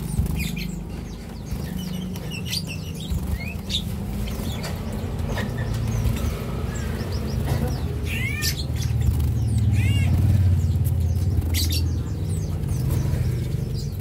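Caged cinereous tits giving scattered short chirps, with a few clear arched calls about two-thirds of the way through and brief wing flutters as birds flit about the cage. A steady low rumble runs underneath.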